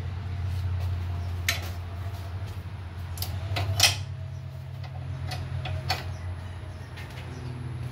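A handful of sharp metallic clicks and knocks from engine-removal work, the loudest just before four seconds in, over a steady low hum.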